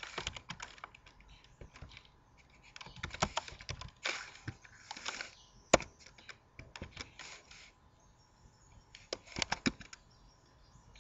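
Computer keyboard typing: short runs of key clicks in four or so groups, with pauses between them.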